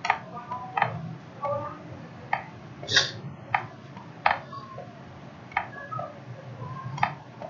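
Sharp, irregular clicks and taps, about one every half-second to second, made while bonds and hydrogen atoms are being hand-drawn onto the slide. The one about three seconds in is the loudest, a fuller knock. A low hum sits underneath.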